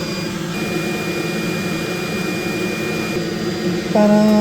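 Hot air rework station blowing a steady stream of hot air onto a circuit board to melt the solder on a USB port, with a thin high whine that stops about three seconds in.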